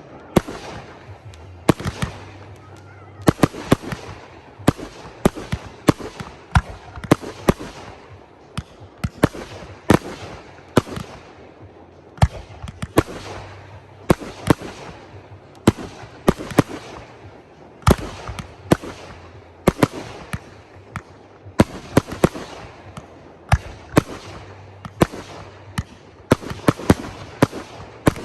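Fireworks display: a continuous series of sharp bangs, about one to two a second, each trailing off into crackle and echo.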